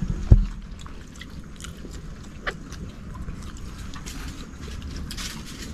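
Eating by hand: scattered small clicks of cooked clam shells being handled and picked apart, with chewing, and one dull thump just after the start.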